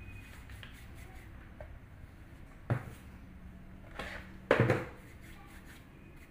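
Quiet room tone broken by a few short knocks and thuds as dough is handled and cut with a knife on a pastry board. There is one a little before halfway, then two close together about two-thirds through, the second of these the loudest.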